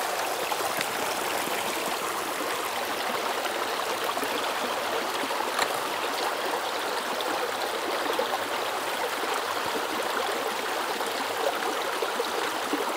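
Small mountain creek running over rocks: a steady rush and babble of water from a little cascade close by.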